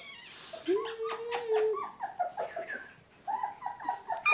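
Nova Scotia Duck Tolling Retriever puppies whining: one held, even whine of about a second near the start, then a run of short, high whimpers and squeaks.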